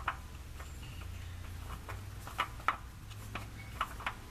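A handful of light, irregularly spaced clicks as a new spin-on oil filter is turned by hand onto its threaded mount, over a low steady hum.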